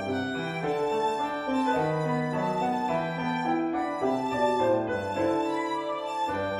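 Violin playing a melody of held notes over piano accompaniment.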